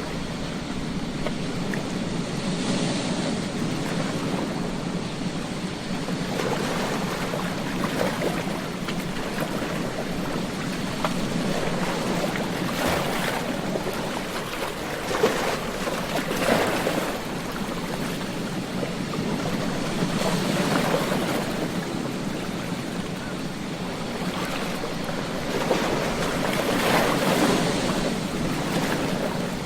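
Ocean surf washing on a beach: a steady rush of breaking water, with a louder wave surging in every few seconds.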